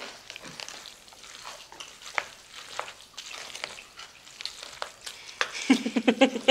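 Wooden chopsticks tossing sauce-coated bibim guksu noodles in a ceramic bowl: wet, sticky mixing sounds with scattered light clicks. A voice starts near the end.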